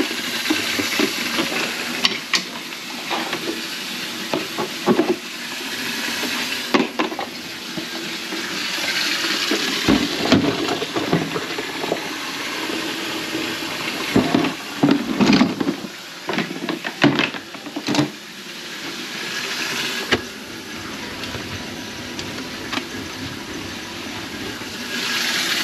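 Water running into a kitchen sink and down its drain line, which has just been snaked to clear a grease clog, with scattered knocks and clatter.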